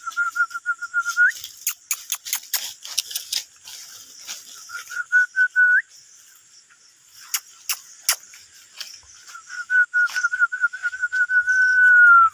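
A person whistling in quick pulsed runs at one steady pitch, three times: the first two runs end with a short upward flick, the last in a longer held note that drops slightly. Dry leaves crackle sharply between the runs.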